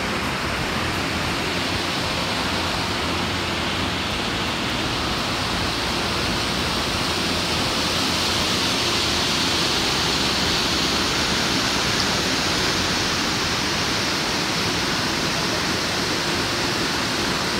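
Waterfall cascading into a rock pool: a steady rush of falling water that grows slightly louder and brighter about halfway through.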